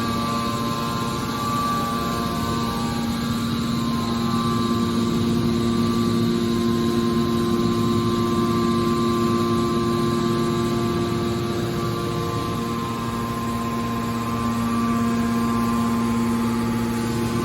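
Steady hum of running industrial machinery: several held tones over a continuous rumble, with no strikes or breaks.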